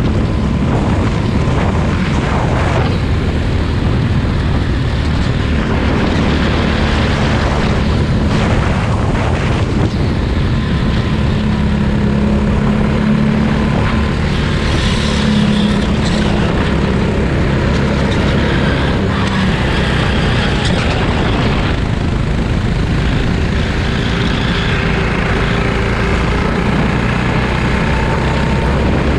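Go-kart engine running at racing speed, its pitch rising and falling with the throttle.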